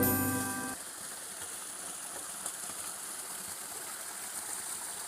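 The last notes of background music, played on mallet percussion, ring out and fade within the first second. A steady rushing hiss follows and stops abruptly at the very end.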